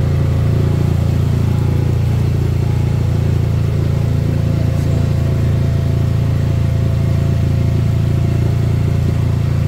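Motorboat engine running at a steady cruising speed: a loud, even, low drone that does not change.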